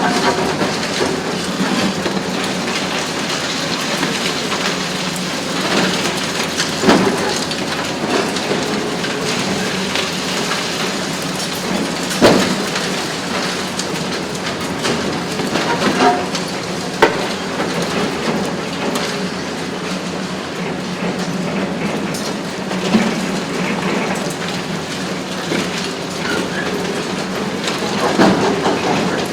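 Hitachi ZX870 long-front demolition excavator at work: its engine runs steadily under a continuous crackle and clatter of breaking concrete and falling debris. Several louder crashes come through, the biggest about twelve seconds in.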